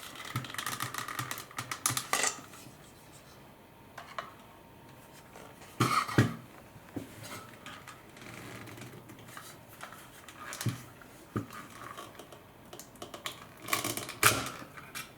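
Irregular plastic clicks, taps and rattles of the Dyson V10 vacuum's handle and trigger assembly being handled and worked out of the housing, with two sharper knocks, one about six seconds in and one near the end.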